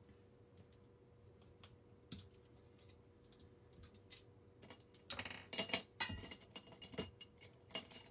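Makeup brushes and cosmetic items being handled and rummaged through: scattered light clicks, then a busier run of clicks and clatters in the last three seconds.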